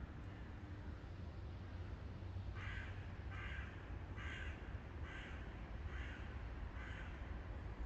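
A crow cawing six times, the calls evenly spaced a little under a second apart, over a steady low rumble.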